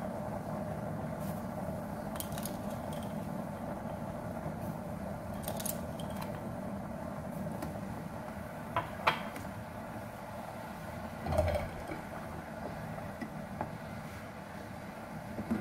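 Black soybeans boiling in an enamel pot on an induction cooktop, a steady bubbling over the hob's fan hum, with a few knocks of a wooden spatula against the pot as sugar is stirred in, around halfway through and near the end.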